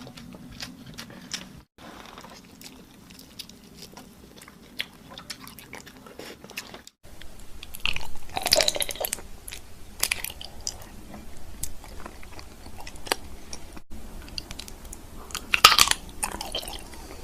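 Close-miked eating: crunchy bites and chewing with many small crackles. Louder crunching bites come about eight seconds in and again near the end.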